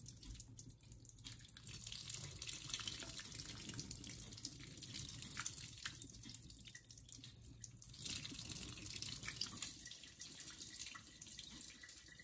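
Boiling water poured slowly from a small pot over chopped lobster meat in a plastic colander, running through and dripping into the sink to blanch the meat. The water sound is faint and uneven, easing off about a second in and again around six seconds in.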